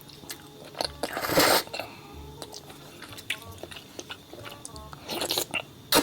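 Close-miked eating: a loud bite about a second in and another near the end, with chewing and small wet clicks between them, over background music.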